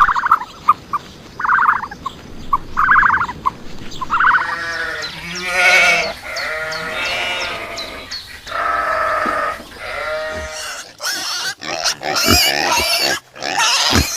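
A run of different animal calls: short pulsed grunting calls, then several drawn-out calls, then short harsh bursts near the end.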